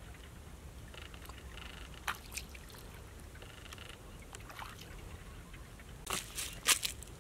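Faint wet splashes and squelches of shallow muddy water and mud, a scatter of short slaps with the loudest pair near the end.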